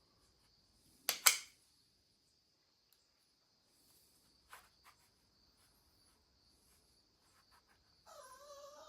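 Two sharp plastic clicks about a second in, from a phone being handled in a clamp-style phone mount, followed by a few small ticks. A faint, steady, high-pitched whine sits underneath, and a brief wavering whine comes in near the end.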